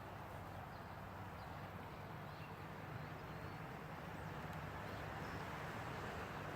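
Faint, steady outdoor ambience: an even hiss over a low hum, with a few faint high chirps.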